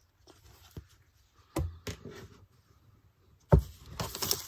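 Plastic CD cases being handled: two light knocks a little over a second in, then a louder knock followed by about a second of rattling and rubbing near the end.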